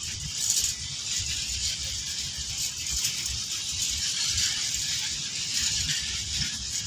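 Freight train flat wagons rolling past: a steady rattle of steel wheels on the rails over a continuous hiss, with irregular low thumps.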